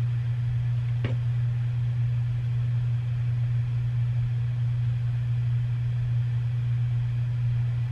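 A steady low hum, even in level throughout, with one faint click about a second in.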